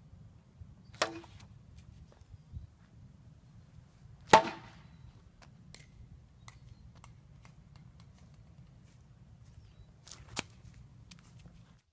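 Sharp knocks of a plastic toy bat hitting a plastic ball: one about a second in, a louder one a little past four seconds, and two close together near the end.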